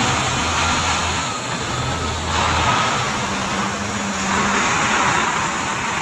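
Scania heavy-haul truck's diesel engine running as it passes close by slowly, pulling a heavy-equipment low-loader, with a steady low drone.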